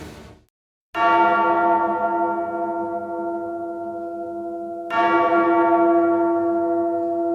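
A large bell tolled twice, about four seconds apart. Each strike rings on as a deep, lingering tone that slowly fades.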